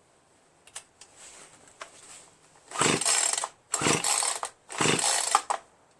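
Three pulls on a Poulan Pro PR4218 chainsaw's recoil starter cord, each a short whirring rush about a second apart, after a few light clicks. The engine turns over without catching: this is a non-starting saw whose scored piston and cylinder give it almost no compression.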